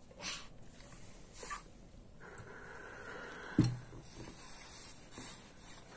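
Steam iron lifted and pressed onto fabric: a few short hissing puffs, then a thud about three and a half seconds in as the iron comes down, with a faint steady hiss after it.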